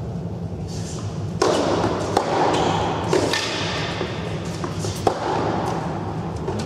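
Tennis balls struck by rackets and bouncing on an indoor hard court: a few sharp, separate knocks that ring briefly in a large hall, over a steady low hum.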